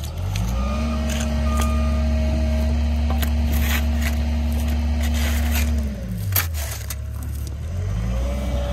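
Diesel engine of heavy machinery revving up, holding steady for about five seconds, dropping back about six seconds in, then revving up again near the end, with scattered clicks and scrapes.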